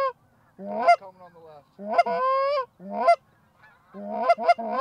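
Loud Canada goose honking: several drawn-out honks, each breaking sharply upward in pitch, then a fast run of short clucking honks about four a second near the end.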